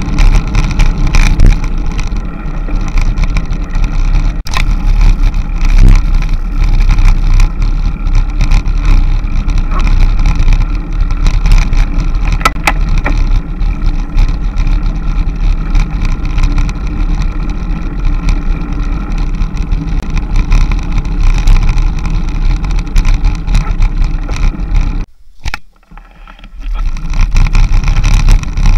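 Steady engine drone and wind rush from a vehicle driving along a mountain road, with a strong low rumble. About three seconds before the end it drops away briefly for a second or so, then returns.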